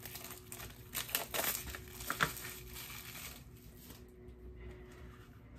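Clear plastic shrink wrap crinkling as it is peeled off a small cardboard tarot card box, in scattered crackles that die away after about two seconds.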